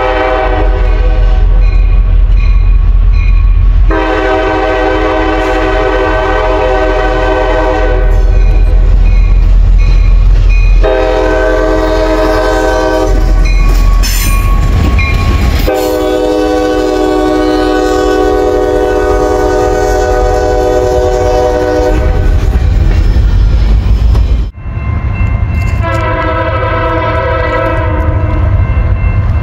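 Train horns blowing in a montage of separate clips, each a long steady blast of several notes, over the low rumble of locomotives and passing trains. The sound changes abruptly every few seconds as one clip cuts to the next.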